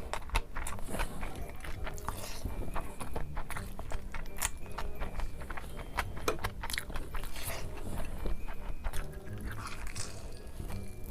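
A person eating biryani close to the microphone: steady chewing with many wet mouth clicks and small crunches, and a few larger bites.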